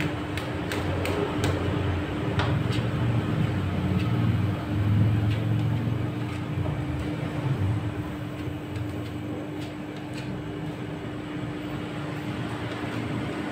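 Rolled ice cream machine's refrigeration unit running with a steady hum, while metal spatulas scrape and click now and then against the frozen steel pan as the ice cream base is spread. The low rumble eases off somewhat after the first half.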